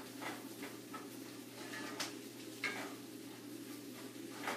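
A utensil scraping and knocking against a cast iron pan as beet greens and stems are stirred, a handful of short clatters with the loudest about two seconds in, over a faint steady sizzle of butter and oil.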